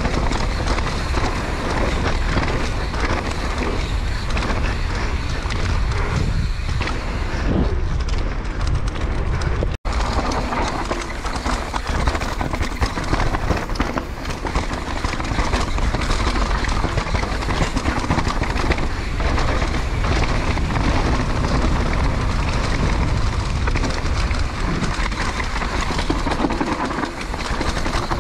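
Wind buffeting the camera microphone at speed, over the continuous clatter of a 2018 Santa Cruz V10 downhill mountain bike rattling over dirt and rocks: tyres on the trail, chain and frame knocking. The sound cuts out for an instant about ten seconds in.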